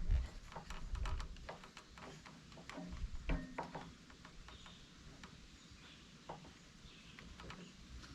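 Light clicks, taps and knocks of parts and tools being handled as a piece is fitted onto the push mower's engine, busiest in the first few seconds and then fainter and sparser.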